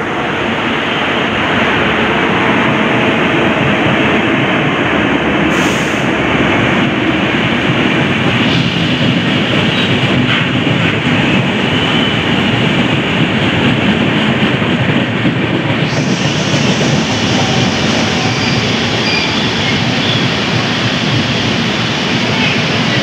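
Double-decker passenger train coaches rolling past along the platform: a loud, steady rumble of wheels on rails, with faint short high-pitched squeals in the second half.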